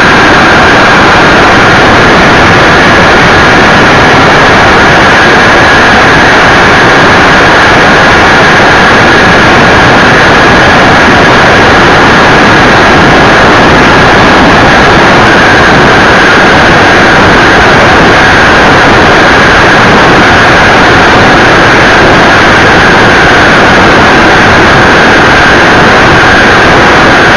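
Kerosene-burning model jet turbine running steadily in flight, heard from on board the plane: a loud, even rush with a steady high whine that holds one pitch throughout.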